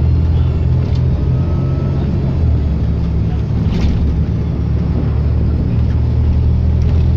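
A bus's diesel engine running steadily, with a faint high turbocharger whistle over the engine in the first couple of seconds. The engine note shifts about two and a half seconds in.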